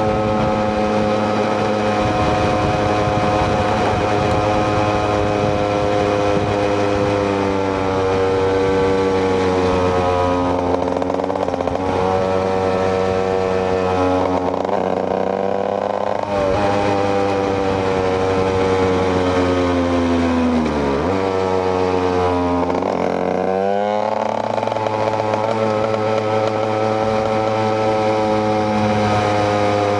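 KTM EXC 125 two-stroke motard engine running at steady cruising revs. Its pitch dips and climbs a few times as the throttle is eased and reopened, dropping sharply about twenty seconds in and rising back a few seconds later.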